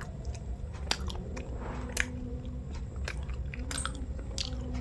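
Close-up mouth sounds of a person chewing soft sweet bread with cheese and chocolate filling, with sharp wet smacking clicks about once a second.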